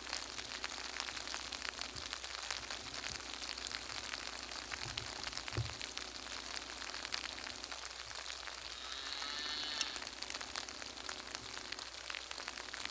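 Steady crackling hiss full of fine clicks, with a brief faint warbling sound about nine seconds in.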